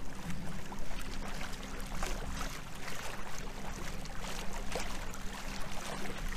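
Water rushing and splashing along the hull of a kayak under way, over a steady low hum from its battery-powered electric motor.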